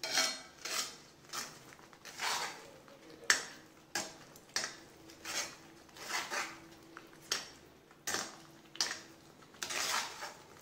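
Metal slotted spoon scraping and stirring thick mint paste around a heavy kadai, in repeated strokes about one and a half a second. The paste is being sautéed in sesame oil on low heat until the oil separates.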